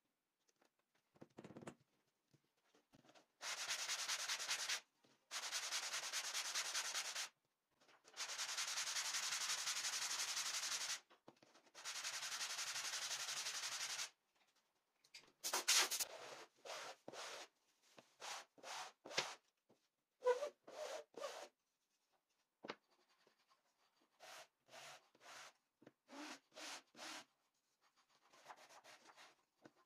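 Hand sanding: a wooden piece rubbed back and forth on a sheet of sandpaper laid flat on a bench. First four long spells of continuous sanding, then shorter separate strokes about two a second, quieter.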